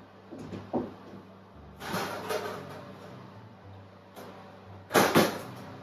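Oven door and brownie tin being handled: a rattling scrape about two seconds in, then two sharp knocks a fraction of a second apart near the end.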